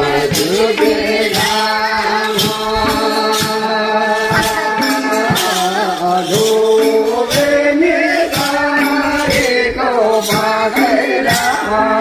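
Singing of a Nepali Bhailo festival song, with long held and gliding sung notes over percussion that keeps a steady beat.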